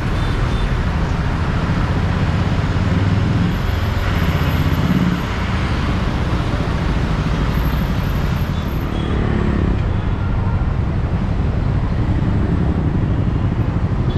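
Moving vehicle on a city road: a steady drone of engine and tyre noise with surrounding traffic, and a short rise in pitch about nine seconds in.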